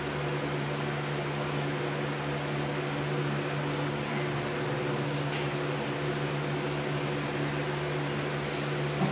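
Steady hum of an electric box fan running: a constant motor drone with an even rush of air. A faint light tick about five seconds in.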